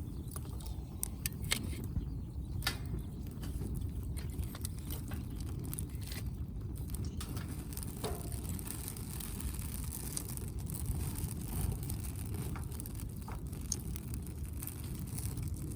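Campfire of burning firewood, with irregular sharp pops and crackles over a steady low rumble.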